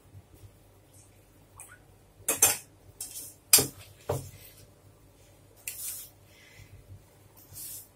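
Stainless steel pot and bowl clanking: a few sharp metal clanks as a steel pot is set down on the gas stove, then softer scraping and rustling of dough being kneaded by hand in a steel bowl.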